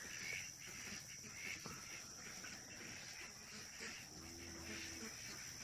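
Faint evening outdoor ambience: a steady high insect trill with faint chirps, and a short, faint low-pitched call about four seconds in.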